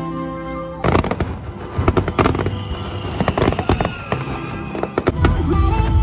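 Music for under a second, then a sudden change to a fireworks display: repeated sharp bangs and crackling, with a long whistle in the middle that slowly falls in pitch.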